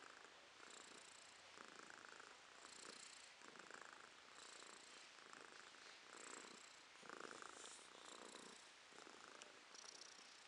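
Domestic cat purring, faint and steady, swelling and fading with each breath about once a second.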